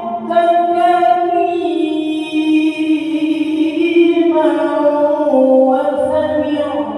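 A single unaccompanied voice chanting in long held notes that step and glide slowly up and down in pitch: melodic Quran recitation before Friday prayer.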